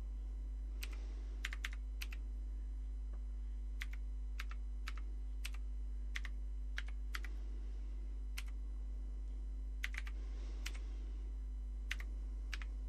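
Commodore VIC-20 keyboard being typed on, the mechanical keys clicking one at a time in an uneven, unhurried rhythm as a line of program data is entered. A steady low hum runs underneath.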